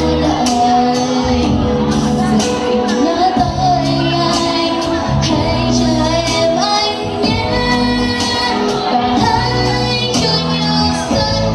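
Pop song playing: a sung melody, with a woman's voice, over a band backing with a steady drum beat.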